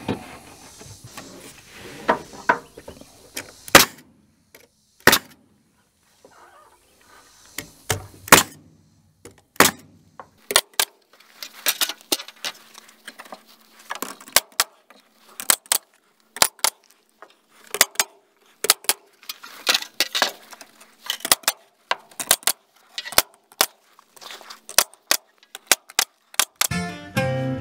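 Irregular sharp knocks and clacks from carpentry work on a wooden shed wall, some coming in quick clusters. Music comes in at the very end.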